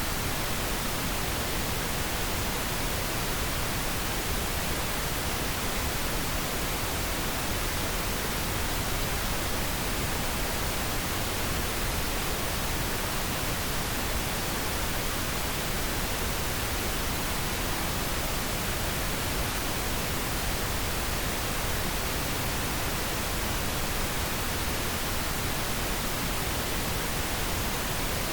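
Steady pink noise: an even, unchanging hiss spread across the whole range of pitch, with no events or changes in it.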